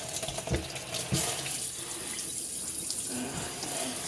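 Kitchen tap running water into a sink, with two dull knocks about half a second and a second in.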